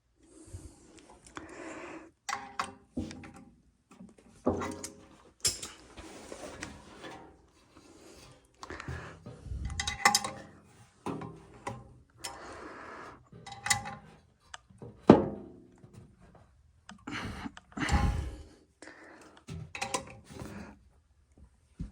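Irregular clunks, knocks and scrapes of metal parts and tools being handled while working on an air handler's blower motor and blower wheel assembly, with no running motor.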